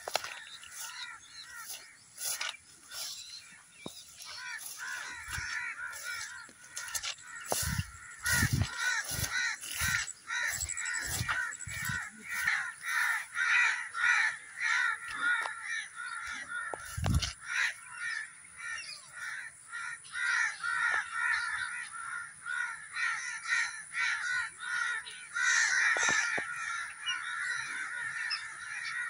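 Many birds calling at once in a continuous chorus of short, rapidly repeated calls, which thickens about seven seconds in. A few low thumps sound in between.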